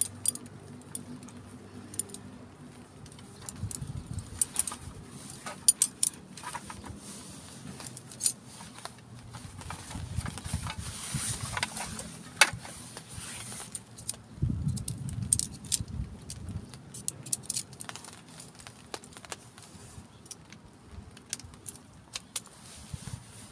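Aluminium poles of a folding camp table clicking and clinking as it is unpacked and unfolded, with rustling of its nylon carry bag and a few soft knocks of handling.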